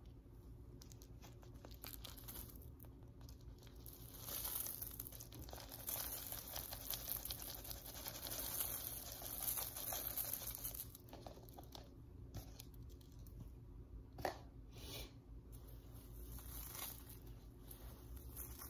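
Packed dust, hair and lint from an upright vacuum's dust cup being pulled apart by hand and poured out onto carpet: soft tearing and rustling, loudest in the middle stretch, with a single sharp tap about fourteen seconds in.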